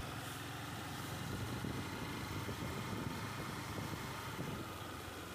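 Motorcycle engine running steadily while riding, heard from the bike itself.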